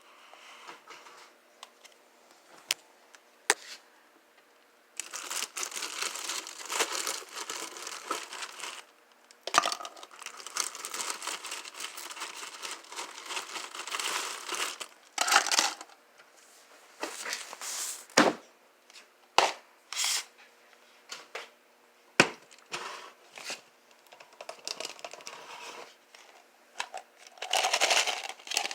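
Noises made with drinks and their containers: stretches of crackling hiss lasting a few seconds each, broken by sharp clicks and taps.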